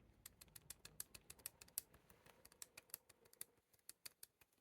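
Faint, irregular light clicks, several a second: the 'cricket', a rattle of a loose part on a Bajaj Dominar 400 motorcycle.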